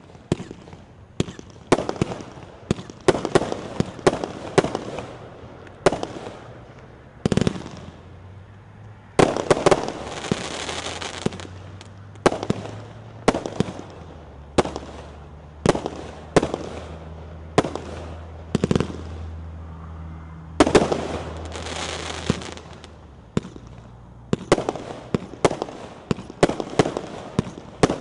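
Power Source "Torch It" multi-shot aerial firework firing a string of shots, sharp launch and burst bangs about a second apart at an irregular pace, with longer, denser stretches around ten and twenty-one seconds in.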